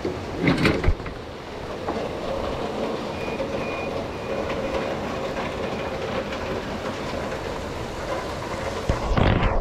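Pouring rain and the hiss of bicycle tyres on wet pavement, with the bicycle rattling. A few clattering knocks come just after the start, and a loud low rumble comes near the end.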